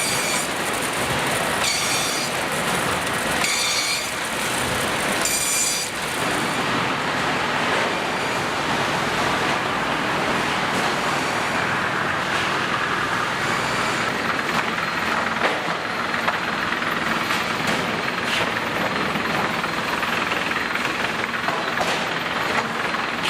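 Sawmill edger line running: dense, steady machinery noise with scattered knocks and rattles. Three short, high-pitched bursts come in the first six seconds.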